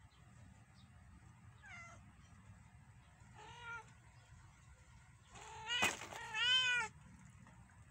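Domestic cat meows: a faint falling call, a short meow a little later, then two louder meows close together near the end. A sharp click comes between the last two.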